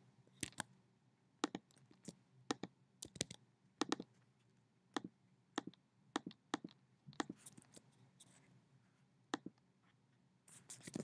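Faint computer mouse clicks: about twenty short, sharp clicks at an uneven pace, several in quick pairs, as buttons on an on-screen calculator are clicked.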